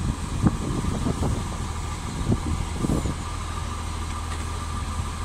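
Irish Rail 22000 Class InterCity diesel railcar idling at the platform, a steady engine hum, with a few knocks in the first three seconds.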